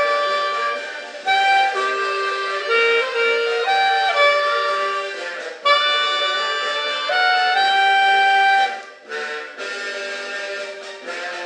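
A reed instrument played solo: a slow melody of long held notes, each lasting a second or two, with a brief gap about nine seconds in.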